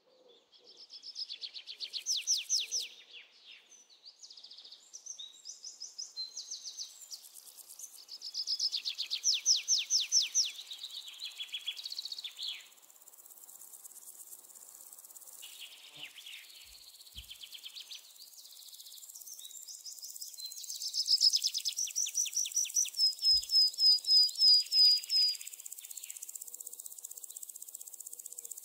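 Small birds singing close by, in loud bursts of rapid high trills a few seconds apart. One phrase ends in a run of about eight quick repeated notes. Under them a steady high insect hiss grows stronger in the second half.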